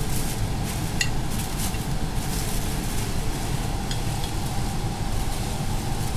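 Tissue paper rustling and crinkling as it is handled and stuffed into a gift bag, with a couple of sharper crinkles about a second in and near four seconds, over a steady low background rumble.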